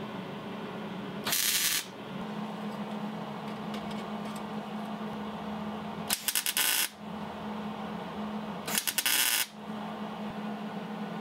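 A MIG welder laying three short tack welds on exhaust pipe, each a brief burst of crackling sizzle lasting under a second, over a steady hum.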